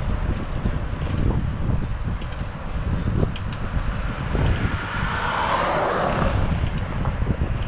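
Wind buffeting a GoPro's microphone on a moving bicycle, a steady low rumble. A car passes on the adjacent road about five to six seconds in, its rushing noise swelling and fading.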